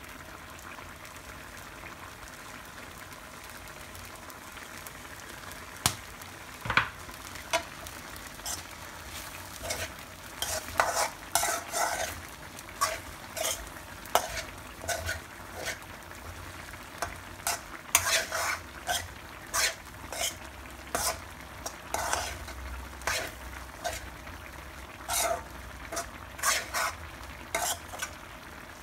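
Rice frying with a steady sizzle in a black wok, stirred and tossed with a metal spoon: repeated scrapes and clinks of metal on the pan, a few at first and then thick and fast from about ten seconds in.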